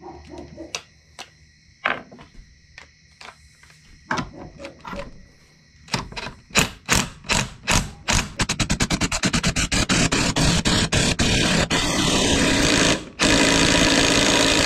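Impact wrench hammering at a stubborn fastener on a small engine. Scattered clicks and taps at first, then from about six seconds in, rapid hammering that speeds up into a continuous rattle. It stops briefly near the end and starts again.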